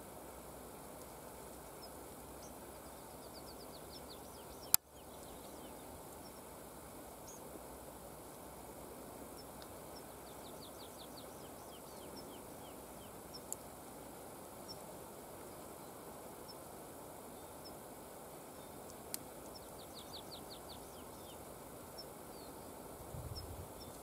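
Faint song of a small songbird: three short phrases of quickly repeated high notes, spaced several seconds apart, over a steady background hiss. A single sharp click about five seconds in is the loudest sound.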